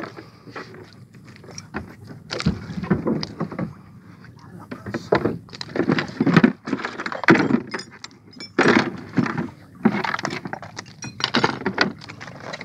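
Irregular clinks, knocks and clatter as fishing gear is handled in a small outrigger boat, the homemade lead octopus lure and its hooks among it.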